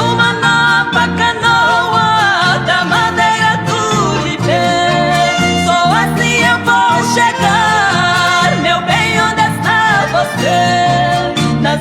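Music: a song with a singing voice carrying the melody over a steady, repeating bass and strummed or plucked accompaniment.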